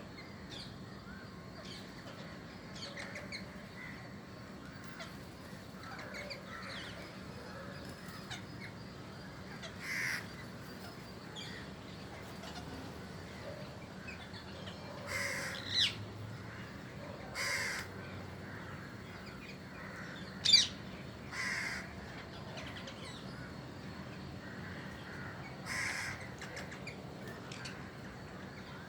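Parrots screeching: about six loud, harsh calls spread out, the loudest about twenty seconds in, over steady faint chirping.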